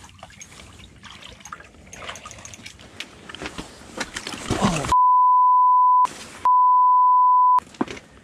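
Two steady high censor bleeps, each about a second long with a short gap between, starting about five seconds in, with all other sound cut out around them: a swear word beeped over. Before them, clothing rustle and clicks from handling a spinning rod and reel.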